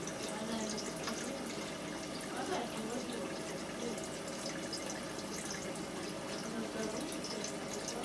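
Aquarium water trickling and splashing steadily, with scattered small drips.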